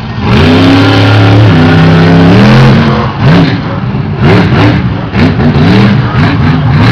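Monster truck engine running loud, its note held and stepping up in pitch for the first few seconds, then a series of quick revs rising and falling.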